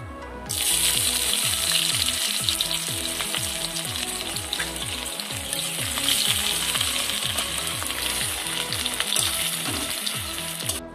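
Sliced onions and green chillies hitting hot oil in a wok: loud sizzling starts suddenly about half a second in. The sizzling carries on steadily while they are stirred with a spatula.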